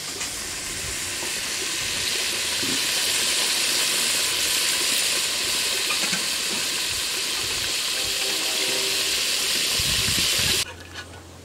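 Chicken pieces frying in hot oil in a pot, sizzling steadily. The sizzle grows louder over the first two seconds and cuts off suddenly near the end.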